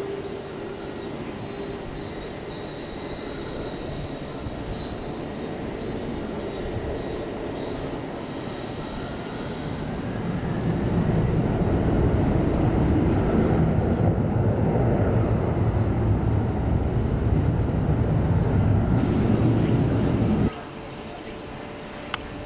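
C-5M Super Galaxy's four turbofan engines rumbling on takeoff, the low roar building over a couple of seconds about ten seconds in and holding, then cutting off abruptly near the end. Insects chirp steadily underneath.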